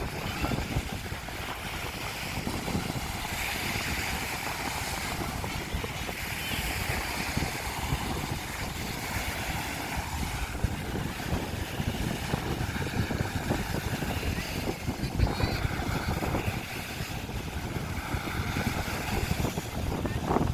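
Strong wind buffeting the microphone in an uneven low rumble, over a steady rush of sea waves.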